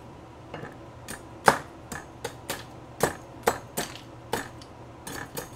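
Carving knife being sharpened in quick strokes, about fifteen sharp metallic scrapes at roughly three a second, uneven in spacing and loudness.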